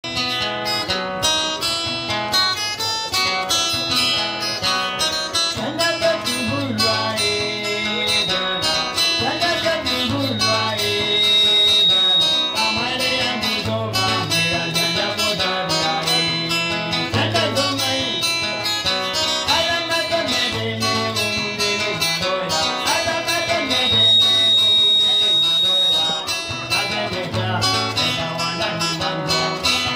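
Acoustic guitar with a capo, played in a steady rhythm with a repeating bass line under the chords. A thin high held tone sounds twice over the playing.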